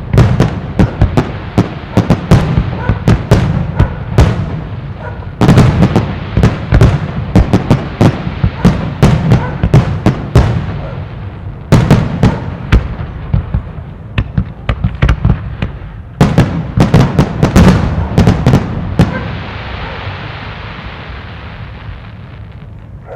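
Aerial fireworks shells bursting in a rapid barrage, many loud bangs in quick succession in several dense salvos with short breaks between them. About three-quarters of the way through, the bangs stop and the sound dies away into a steady fading hiss.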